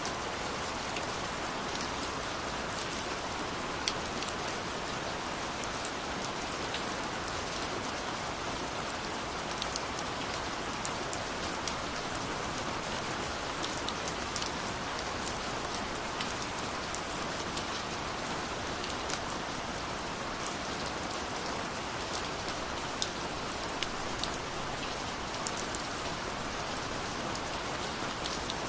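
Steady rainfall: an even hiss of rain with scattered sharp patters of individual drops striking a surface.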